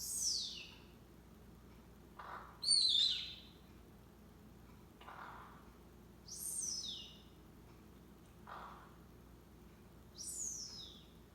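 Sleepy Quaker parrot (monk parakeet) snoring. A soft breathy sound comes every three to four seconds, followed each time by a high squeak that falls in pitch. There are four squeaks, the loudest a little under three seconds in.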